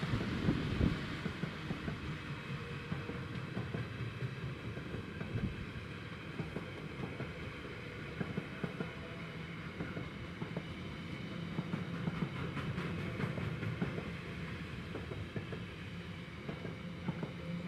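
Intermodal container train's flat wagons rolling past steadily, wheels rattling and clicking on the rails.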